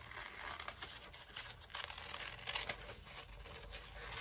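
Scissors cutting through two layers of paper held together, a magazine page and a thin computer-paper template, with faint irregular snips and paper rustling as the sheets are turned.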